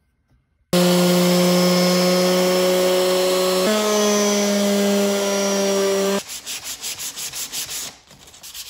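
A Bosch SheetLock orbital palm sander starts just under a second in and runs on plywood with a steady buzzing hum. Its pitch steps slightly higher about halfway through, then it stops. Quick back-and-forth rubbing strokes follow, a plywood piece being sanded by hand.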